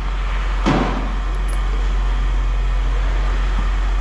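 Vehicle engine running steadily with road or cabin noise and a deep hum, with one short thud less than a second in.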